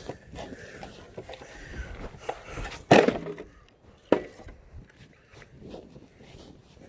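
Wood knocking and clattering as boards are handled, with two sharp knocks about three and four seconds in, the first the loudest.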